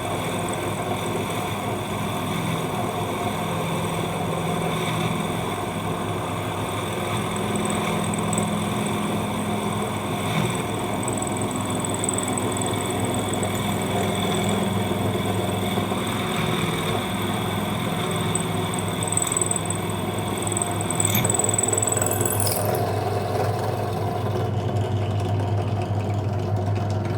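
ZJ4113 bench drill press running, its titanium-coated bit cutting through a metal bicycle pedal crank arm with a steady motor hum and a high grinding cutting noise. The high cutting noise drops away about three quarters of the way through as the bit breaks through, leaving the motor running.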